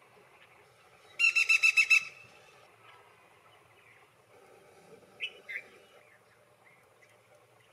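Black-rumped flameback woodpecker giving a fast, rattling series of about eight loud, evenly spaced notes lasting under a second, followed a few seconds later by two short, fainter call notes.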